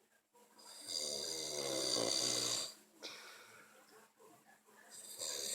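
A sleeping person snoring: one long snore of nearly two seconds about a second in, then the next snore starting near the end.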